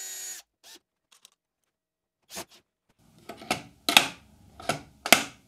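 A cordless drill runs in a short steady burst that stops just after the start. After a pause, a string of sharp clicks and knocks follows, the loudest about four and five seconds in.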